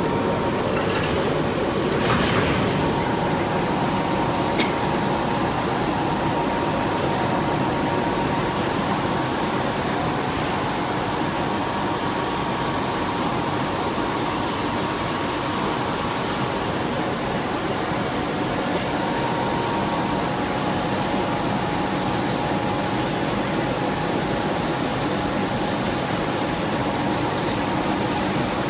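Auto-feed flatbed laser cutting machine running while it cuts car-mat material: a steady mechanical hum and rush with a faint thin whine.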